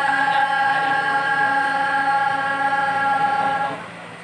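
A group of young women sings one long held note in unison as part of a Saman dance chant. The note breaks off a little before the end, leaving only background hum.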